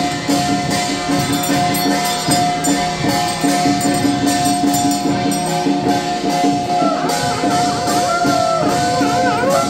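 Chinese temple ritual music: drum and cymbal-like percussion keep a steady, fast beat under a held tone, and a wavering, pitch-bending melody line comes in about seven seconds in.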